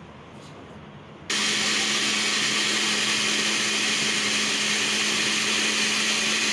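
Glass countertop blender starts abruptly about a second in and runs at a steady speed, its motor humming evenly as it mixes a full jar of liquid egg-and-milk batter.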